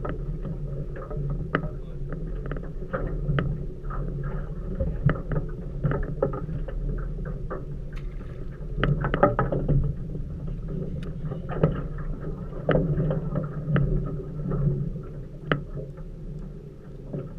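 Small metal boat on choppy water: waves slap and knock irregularly against the hull over a steady low hum.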